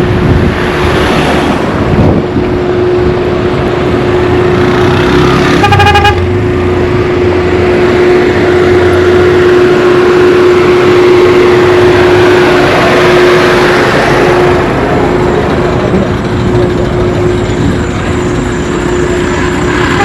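Busy street traffic: motor vehicles running, with a vehicle horn tooting once briefly about six seconds in. A steady hum runs beneath it and stops about fourteen seconds in.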